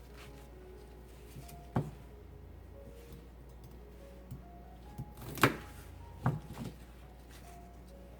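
Fresh celery being trimmed by hand: a few sharp, crisp snaps and clicks of the stalks, the loudest about five and a half seconds in and two more soon after. Soft background music plays underneath.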